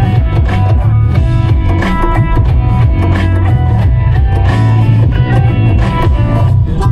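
Loud music with guitar and drums playing throughout.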